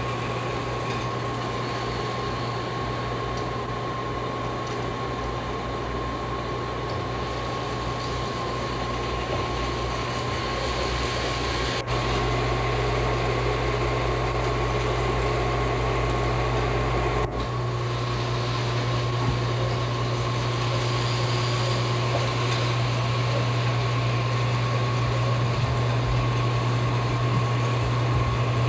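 A steady mechanical hum with a constant high whine above it. The hum changes slightly at two abrupt breaks, about twelve and seventeen seconds in.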